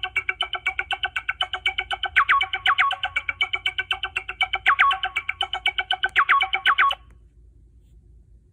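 A Sony Ericsson W995 ringtone playing through the phone's speaker: a fast tune of quickly repeated notes that cuts off abruptly about seven seconds in, leaving a faint low hum.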